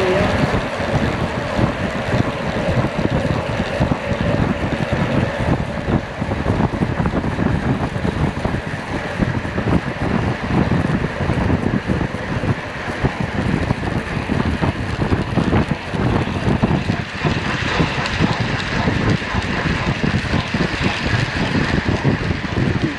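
Wind buffeting the microphone of a camera on a track bike moving at about 33 mph, a loud, choppy rush with strong low rumbling.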